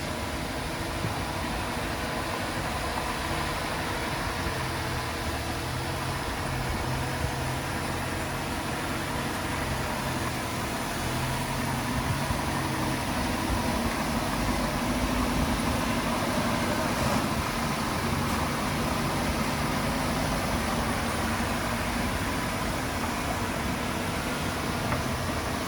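A small D20 bulldozer's diesel engine runs steadily, its pitch shifting as the revs change, a little louder about halfway through.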